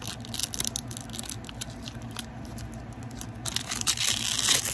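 Clear plastic protective film being peeled off a phone case right against the microphone. It crackles in quick irregular clicks, then gives a louder, longer tearing rip near the end.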